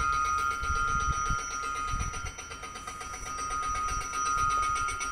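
Station's electric train-announcement bell ringing steadily, the bell that signals a train coming from Mendrisio. It is heard as a constant high ringing tone, with irregular low thumps under it.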